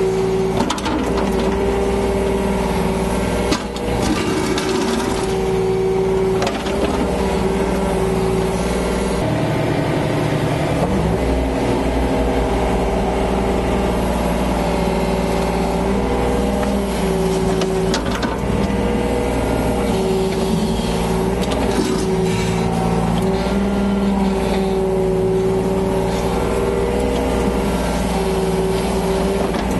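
Yanmar BV25 mini excavator's diesel engine running steadily while it works, with a tone that shifts up and down in pitch as the machine moves.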